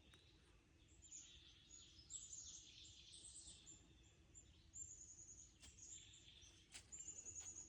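Several songbirds singing faintly, overlapping phrases of quick, high repeated notes, over a steady low background rumble.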